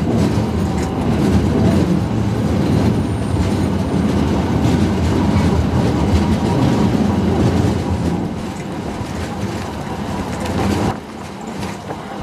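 Blackpool open-top 'boat' streetcar running along the rails, heard from on board as a heavy, steady rumble and rattle of the car and its wheels. The rumble drops off abruptly near the end.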